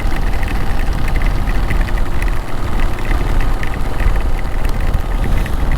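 Motorcycle engine running under heavy rain, with wind rushing over the microphone and many small raindrop ticks.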